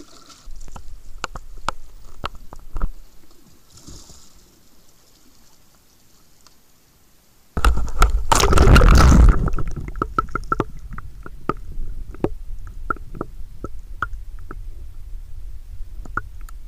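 Water sloshing and splashing around a sea kayak, with a low rumble and many scattered sharp clicks. A loud rushing splash comes about eight seconds in and lasts over a second.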